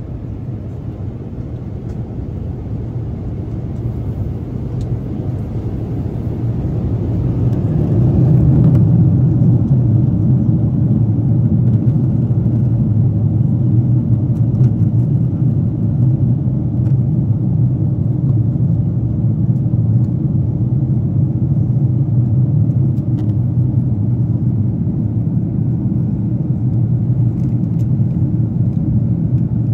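Steady low roar of a Boeing 777-200ER airliner in flight, heard inside the cabin: engine and airflow noise. It grows louder over the first eight seconds or so, then holds steady.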